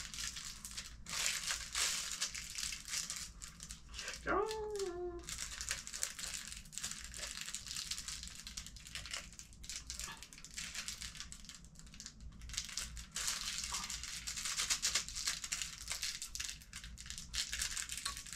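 Plastic packaging being handled and worked open by hand, crinkling continuously with small crackles. A person makes one short voiced sound with a falling pitch about four seconds in.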